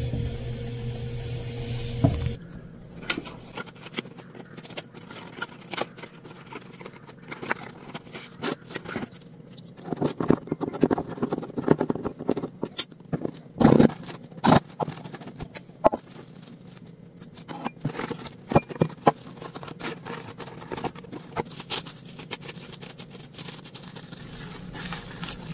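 Scrapes and clicks of a knife run around the inside of an aluminium cake pan to loosen a baked sponge cake, with rustling of plastic cling film; the handling is busiest and loudest about halfway through. A steady hum stops about two seconds in.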